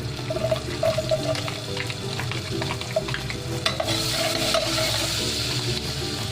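Garlic sizzling in hot butter, with a utensil clicking and scraping as it is stirred; the sizzle grows louder about halfway through.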